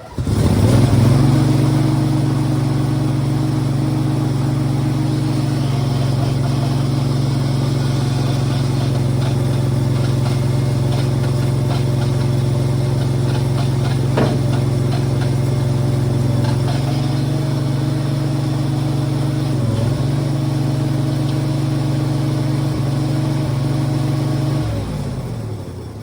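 An engine starts, runs steadily at idle for a little over twenty seconds, then shuts off and winds down near the end.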